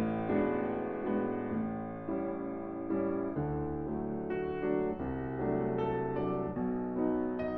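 Steinway & Sons grand piano played solo: a slow passage of struck chords, each left to ring and fade before the next.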